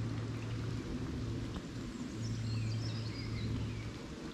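Steady outdoor rushing noise with a low rumble, over which a small bird sings faintly, a short run of high notes stepping downward about two seconds in.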